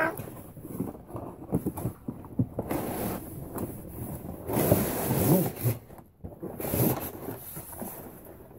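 Cardboard packaging rustling and scraping as a toy box is handled and its insert pulled out, with scattered light knocks. It is loudest about halfway through.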